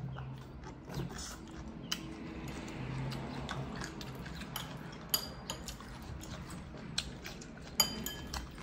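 Wooden chopsticks clicking and tapping against a ceramic rice bowl during eating: a scatter of short, sharp clinks, the loudest near the end.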